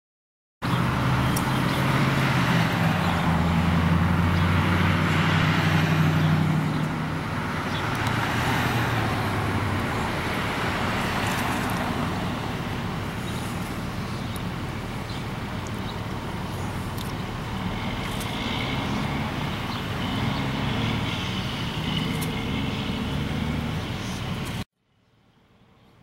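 Motor vehicle engine running steadily with a low hum over a haze of traffic noise, louder in the first several seconds; it cuts off abruptly near the end.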